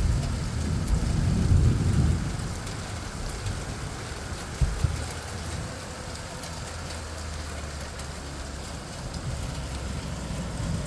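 Very heavy thunderstorm rain pouring down steadily, with a low rumble during the first two seconds and two sharp knocks a little under five seconds in.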